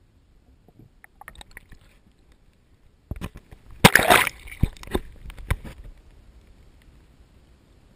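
Lake water splashing and sloshing against a handheld action camera as it is moved at the waterline beside a kayak. The knocks of handling come through, and the sound swells about three seconds in, is loudest near four seconds, and dies away after about two and a half seconds.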